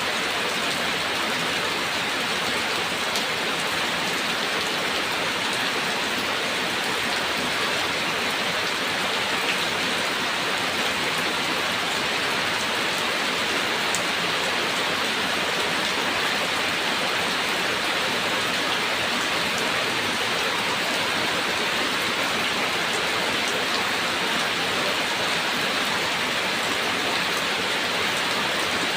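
Steady rain falling, a dense even hiss with scattered drop ticks on a surface.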